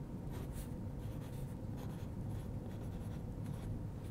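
Pen scratching on a paper sticky note in short, irregular strokes as small words are handwritten, over a faint steady low room hum.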